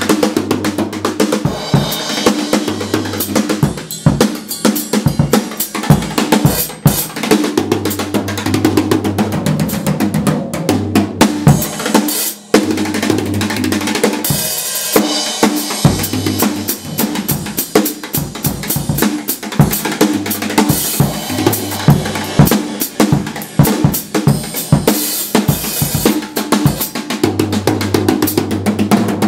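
Acoustic drum kit played in a continuous solo, drums and cymbals struck rapidly with sticks, with a brief break about twelve seconds in.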